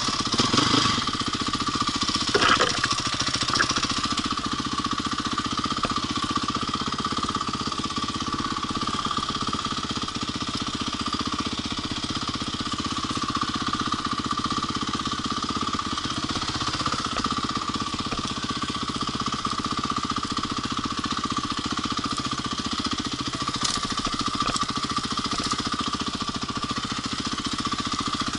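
Single-cylinder four-stroke engine of a Honda CRF450R dirt bike running under way on trail, with a fast, even pulse and little change in speed. There is a brief louder burst about two and a half seconds in.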